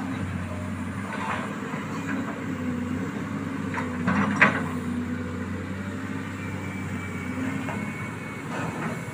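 Hydraulic excavator's diesel engine running steadily, with several short metallic clanks from the machine as it works in the mud. The loudest clank comes a little before halfway.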